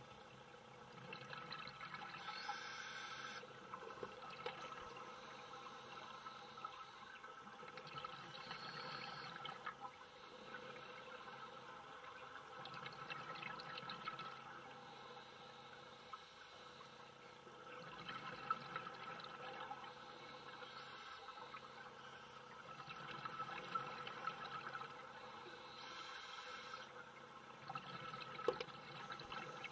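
Underwater ambience dominated by a scuba diver's regulator breathing: swells of exhaled bubbles recurring about every five seconds, with a faint crackle throughout and a few sharp clicks.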